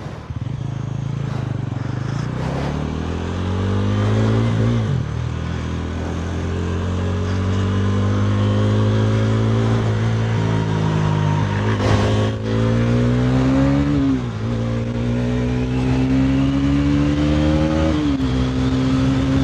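Bajaj Pulsar NS400Z's single-cylinder engine accelerating hard through the gears, heard from on the bike. Its pitch climbs and then drops sharply at each upshift, about four times, over wind rush.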